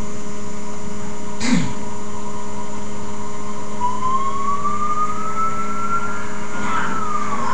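A distant emergency siren begins a slow rising wail about four seconds in and starts to fall again near the end, over a loud steady hum. There is a short knock about a second and a half in.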